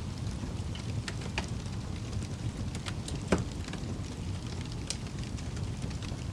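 Fire crackling over a steady low rumble, with scattered snaps and pops; the sharpest pop comes about three seconds in.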